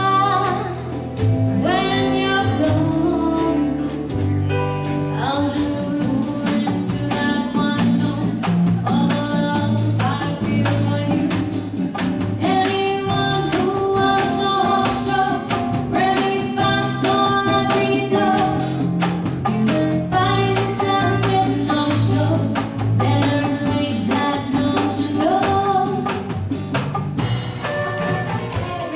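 Live band playing with a singer, over bass and drum kit with a steady beat.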